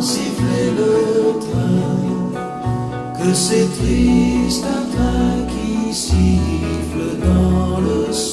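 French pop song: a male voice sings a slow melody over a band, with a bass line stepping to a new note about once a second and occasional cymbal strokes.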